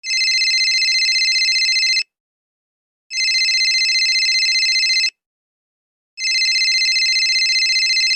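Telephone ringing with an electronic trill: three rings of about two seconds each, about a second apart.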